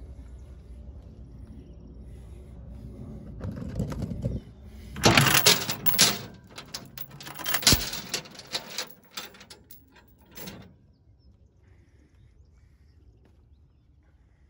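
Steel tie-down chain clanking and rattling for about five seconds as it is handled, with many sharp metal knocks, over a low steady rumble that fades out.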